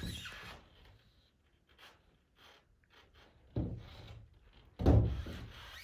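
Two dull thumps about a second apart, the second louder, with faint rubbing and handling noise around them.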